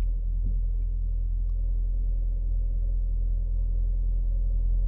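2018 Ford Escape 1.5L EcoBoost turbocharged four-cylinder engine idling steadily just after being started. The engine has logged cylinder 2 misfire and overheating codes and is running low on coolant, and the mechanic suspects a bad head gasket.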